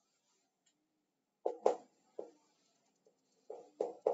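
Chalk writing on a chalkboard: short scratching and tapping strokes, one cluster about a second and a half in and another near the end.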